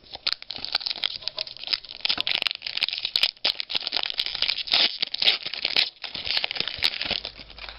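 Crinkling and tearing of a trading card pack's wrapper as it is torn open and handled: a dense, irregular crackle for most of the stretch that dies away near the end.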